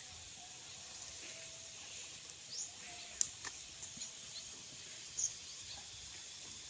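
Quiet field ambience: a steady high hiss with a few short, high, rising bird chirps scattered through it, and a few faint clicks and rustles.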